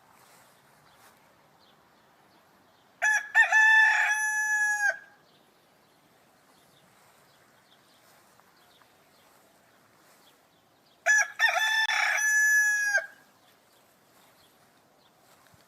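Rooster crowing twice, about eight seconds apart: each crow is a full cock-a-doodle-doo of about two seconds, rising in short notes and ending on a long held note.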